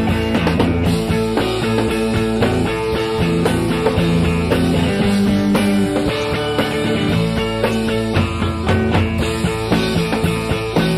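Rock music: an instrumental passage with no singing.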